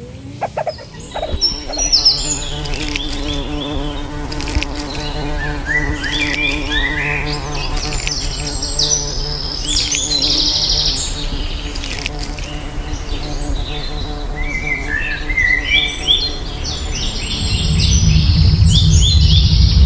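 An insect buzzing steadily with a slightly wavering pitch, with three bursts of quick, high small-bird chirps over it. A deep low sound swells in near the end.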